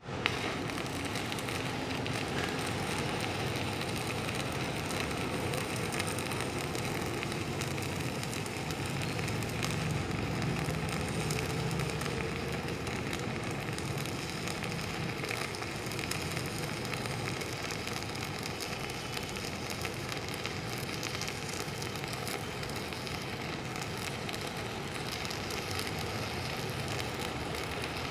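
Stick-welding arc from a BTEC MMA-200 Mini inverter welder burning a 3.2 mm electrode, set at its maximum current for that rod size. The arc strikes right at the start and burns steadily without a break.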